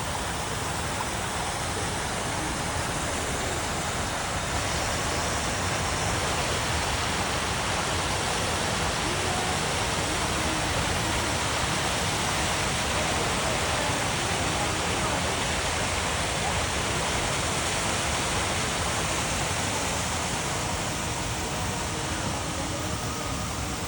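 Waterfall's steady rush of falling water, an even hiss that holds without a break.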